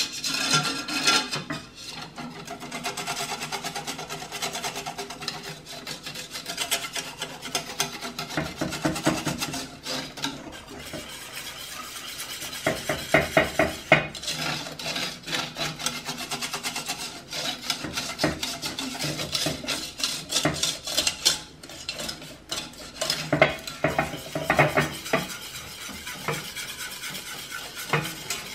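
A wire whisk stirring thick chocolate caramel sauce in a stainless steel saucepan, its wires scraping and clicking rapidly against the sides and bottom of the pan, with a few louder clacks.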